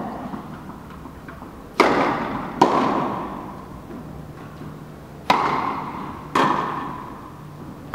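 Tennis ball being struck with rackets and bouncing on an indoor hall court: four sharp pops in two pairs, each ringing out in the hall's echo.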